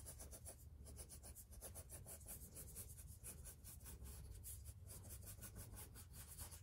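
Pencil drawing on a sheet of paper: a faint, rapid run of short scratchy strokes.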